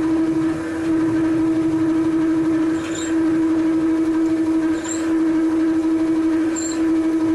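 A freshly reground 13 mm twist drill is boring into a workpiece on a Weiler Matador lathe turning at 240 rpm, hand-fed from the tailstock. It sings with a steady droning tone that dips briefly about every two seconds. The operator puts such sounds down to running the drill too slow.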